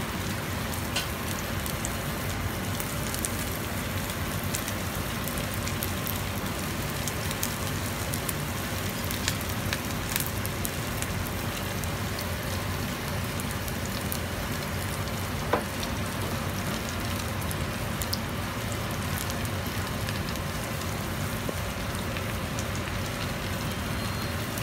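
Kimchi pancake batter frying in a generous layer of salad oil in a frying pan over medium heat: a steady sizzle with scattered small pops and crackles, and one louder pop about halfway through.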